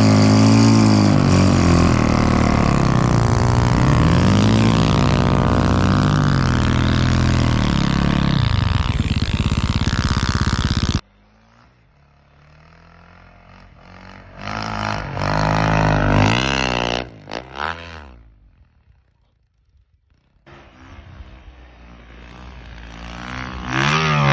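A vehicle engine running close by, its pitch rising and falling with the throttle, cutting off suddenly about eleven seconds in. After that, fainter engine revs come and go, with a short lull before the engine sound returns near the end.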